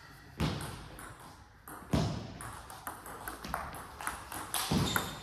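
Table tennis rally: the celluloid ball clicking sharply off the rackets and the table, each hit echoing in a large hall. The clicks start about half a second in and come at an irregular pace, some loud and close, others fainter.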